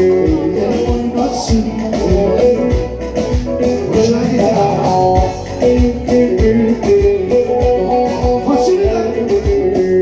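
Live Turkish folk music played through a PA system: a long-necked bağlama (saz) plucks a quick melody over keyboard and a steady drum beat.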